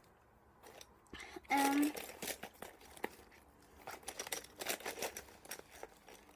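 Packaging crinkling and rustling in irregular crackles as school supplies are handled and pulled out, with a brief hum of voice about a second and a half in.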